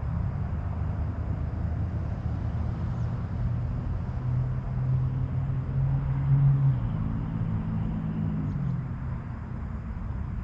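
Low rumble of road traffic, with one vehicle's engine hum growing louder to a peak a little past the middle and then fading as it goes by.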